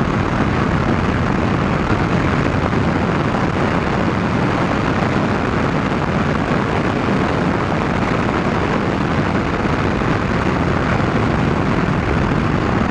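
Steady rush of wind and engine noise from a Moto Guzzi V100 Mandello, its 1042 cc liquid-cooled 90° V-twin, ridden at high speed. The sound holds even throughout, with no change in pitch.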